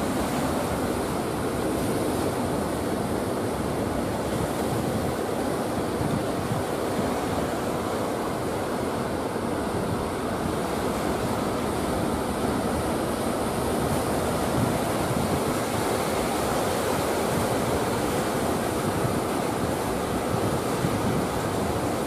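Heavy ocean surf: large waves breaking and foaming one after another, making a steady, unbroken wash of water noise.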